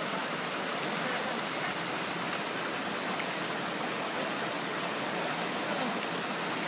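Creek water rushing steadily down a granite chute into a pool.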